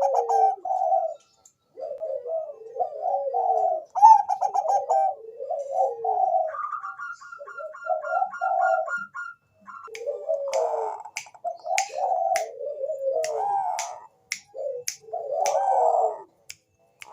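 Bangkok-strain zebra dove (perkutut) cooing in repeated rolling phrases, with a fast run of higher repeated notes midway. From about two-thirds of the way in, sharp clicks come about twice a second over the cooing.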